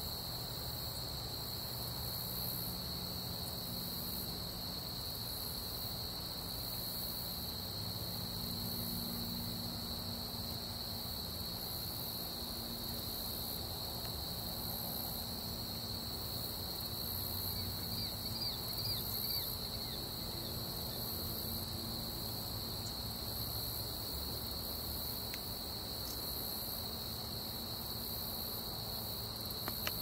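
Steady chorus of insects, a continuous high trill with a faint pulsing hiss above it, and a few brief high chirps a little past halfway.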